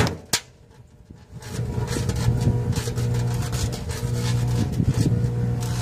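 Microwave oven humming as it runs, with firecrackers and caps popping and crackling inside it. Two sharp bangs right at the start, a brief lull, then the steady hum returns about a second and a half in with scattered pops over it.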